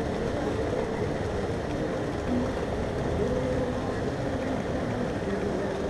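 Steady low harbour rumble with faint, broken distant voices from people along the wharf.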